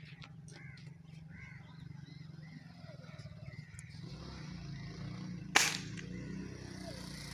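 Birds chirping in short calls, then, about five and a half seconds in, a single sharp crack from a Gamo Whisper X air rifle firing, the loudest sound here. A steady low hum runs underneath.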